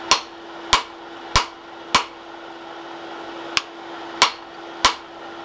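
Hand hammer blows on a hot bar of curly-tine 1080 steel as it is straightened: four sharp ringing strikes about 0.6 s apart, a pause, then four more. A steady hum runs underneath.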